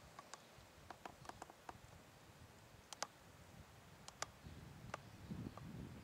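Near silence broken by a dozen or so faint, sharp clicks at irregular intervals, the sharpest about three and four seconds in, with a faint low murmur rising near the end.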